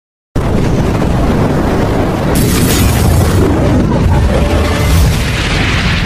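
Cinematic intro sound effect: a deep, dense low rumble that cuts in suddenly just after the start, with a bright hissing sweep about two and a half seconds in lasting about a second, and hiss swelling again near the end.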